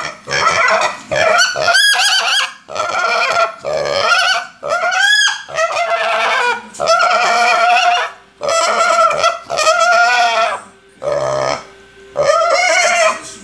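Hungry piglet squealing over and over for food: about a dozen loud, high squeals, each roughly a second long, many sliding up and down in pitch, with short breaks between.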